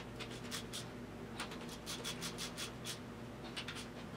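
Light metallic clicks and scratches of a hand tool working on the rocker gear of a Triumph TR6 straight-six engine, with a quick run of clicks in the middle, over a faint steady hum.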